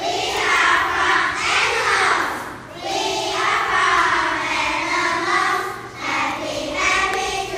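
A group of children's voices in unison, reading or chanting a script together in phrases, with short breaks about two and a half seconds in and again about six seconds in.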